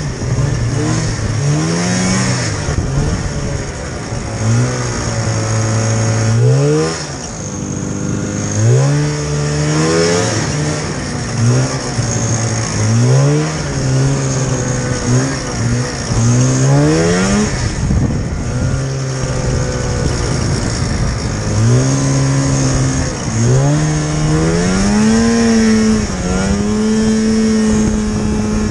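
Polaris snowmobile engine, heard from the rider's seat, revving up and dropping back again and again as the throttle is opened and eased off, with a dozen or so rising surges.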